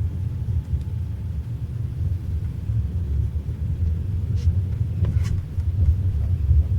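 Steady low rumble of a passenger train carriage running along the track, heard from inside the carriage, with two faint short clicks or rattles a little past the middle.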